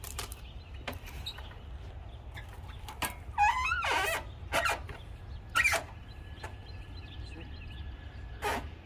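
Sawmill equipment being handled as the log is readied to turn: a few sharp knocks and a short wavering creaky squeak a little over three seconds in, over a low steady hum.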